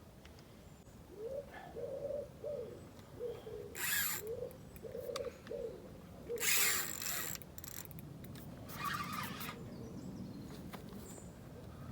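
Pigeon cooing: two repeated phrases of short, low hoots, with bursts of rustling handling noise around the middle.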